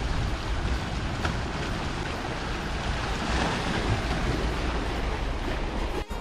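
Wind buffeting the microphone over the wash of sea waves, a steady rushing noise with a heavy low rumble.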